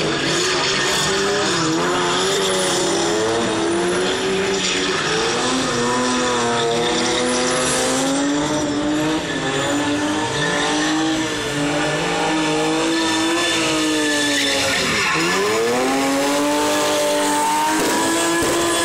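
Drift cars sliding on asphalt, their engines held high in the revs over squealing tyres. About fifteen seconds in, the engine note drops sharply and then climbs back up.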